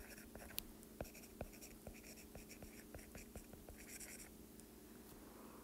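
Faint taps and short scratches of a stylus writing on a tablet screen, a few small ticks a second.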